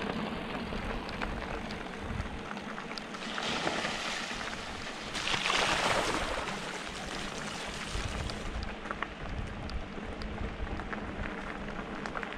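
Mountain bike riding through a stream, tyres splashing through the water, with a louder rush of splashing about halfway through and scattered small clicks.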